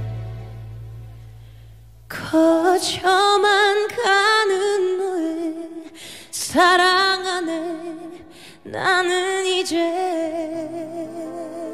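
Female vocalist singing a slow ballad live, near a cappella: after the backing chord fades out over the first two seconds, she sings long held notes with wide vibrato in several phrases, and soft accompaniment notes return near the end.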